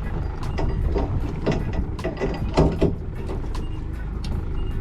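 Steady low rumble aboard a small fishing boat, with irregular knocks and clatter over it several times a second.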